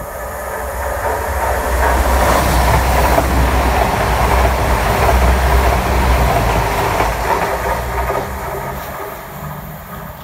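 Class 222 Meridian diesel multiple unit running through the station without stopping: engine hum and wheel-on-rail noise swell as it nears, stay loudest for about five seconds while the carriages pass, then fade as it moves away.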